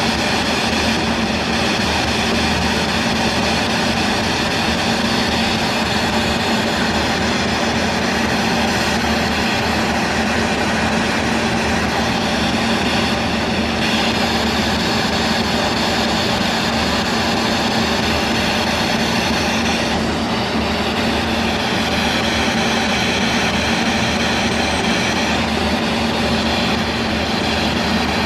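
Handheld spirit box sweeping through radio frequencies, giving out a continuous loud hiss of radio static with a steady low hum under it.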